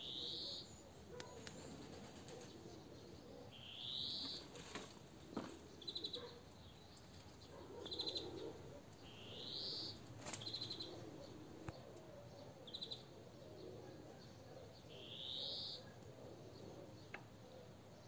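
Songbirds singing: a short rising whistled note repeated four times, about every five or six seconds, alternating with brief rapid trills.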